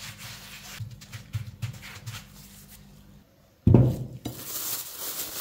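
Gloved hand sweeping flour across a silicone baking mat, a soft rubbing and brushing. After a short drop-out, a sudden loud thump, a plate of plastic-wrapped dough set down on the mat, then a couple of seconds of crinkly plastic-wrap rustling.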